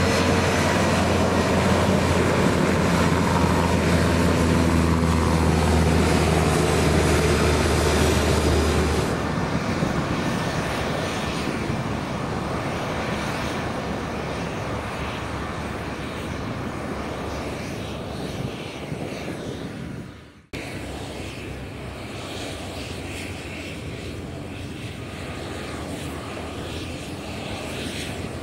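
Bombardier Challenger 600-series business jet's twin General Electric CF34-3B turbofans running. The first nine seconds or so are loud, with a steady low drone and whining tones that shift in pitch. Then the sound cuts to a quieter, steady jet noise, broken by a brief dropout about twenty seconds in.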